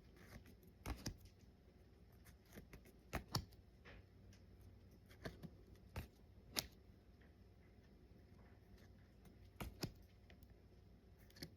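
Faint handling of Pokémon trading cards: a dozen or so soft, irregular taps and flicks as cards are slid and flipped through by hand.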